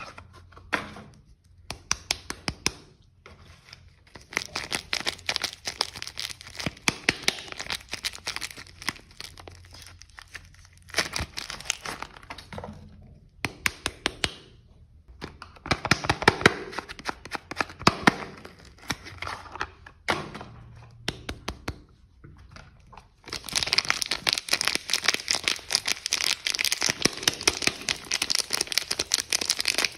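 Hands unwrapping bars of soap: soap wrappers crinkling and tearing in stretches with short pauses between them, turning into a long spell of steady crinkling near the end.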